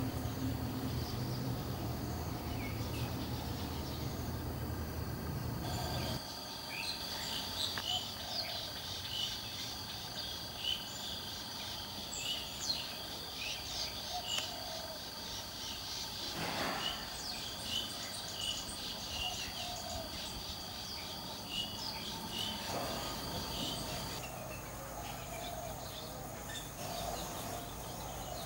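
Ambient outdoor sound: a steady high-pitched insect trill starting about six seconds in and stopping a few seconds before the end, with scattered short chirps of small birds throughout. A low hum fills the first six seconds and cuts off suddenly.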